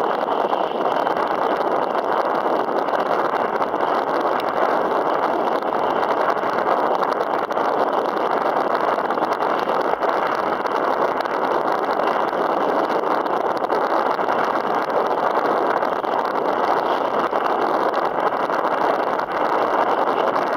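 Steady rushing noise of wind on the microphone over choppy open water, with no breaks.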